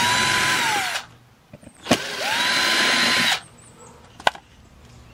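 Milwaukee M12 cordless drill/driver spinning in two short runs to back out the outlet's two Phillips mounting screws, its whine rising in pitch as it spins up and dropping as it stops. Sharp clicks come between and after the runs.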